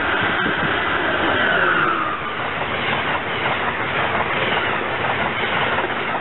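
Amtrak ACS-64 electric locomotive and Amfleet coaches passing close by. A high steady whine from the locomotive falls in pitch about two seconds in as it goes past, and the rushing rail noise of the coaches follows.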